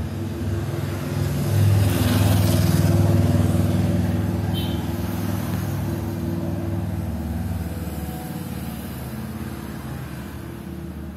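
A motor vehicle's engine running, swelling louder about two seconds in, then slowly fading away.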